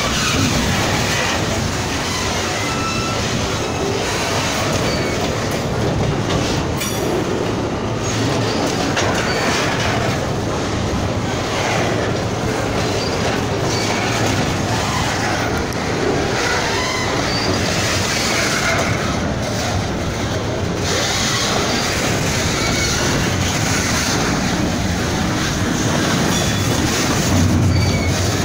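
Freight train of flatcars loaded with steel coils rolling past close by: a steady loud rumble of steel wheels on the rails, with brief faint wheel squeals now and then.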